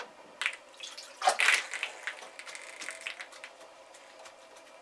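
Water poured from a plastic bucket splashing onto a wicking mat, soaking it to start its capillary action. It comes in uneven gushes, loudest about a second and a half in, then softer splashing.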